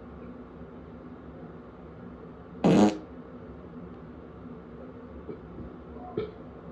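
A person farting once, a short loud burst lasting under half a second about two and a half seconds in. A much smaller, brief sound follows near the end.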